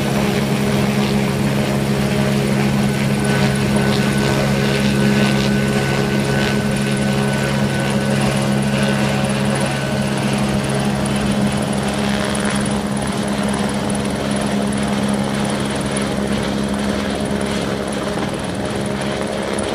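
Helicopter overhead with a steady, loud rotor and engine drone as it lifts a long pipe on a sling line.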